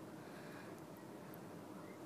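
Faint steady background hiss with no distinct events: room tone.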